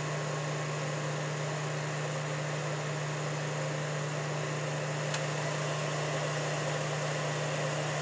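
Steady low electrical hum over an even background hiss, with one faint click about five seconds in.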